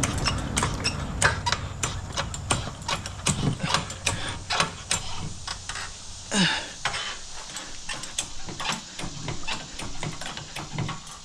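Steel 3-ton floor jack rattling and clanking as it is pulled out by its long handle across concrete: a run of irregular metal clicks and knocks, with a brief falling squeak about six seconds in.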